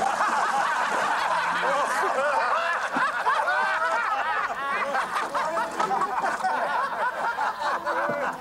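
A group of men laughing together, many voices overlapping.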